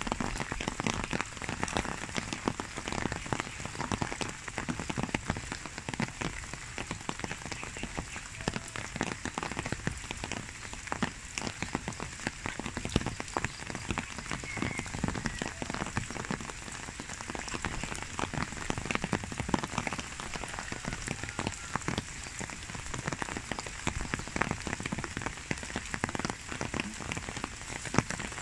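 Typhoon rain falling steadily, with many close raindrops ticking irregularly on the surfaces near the microphone.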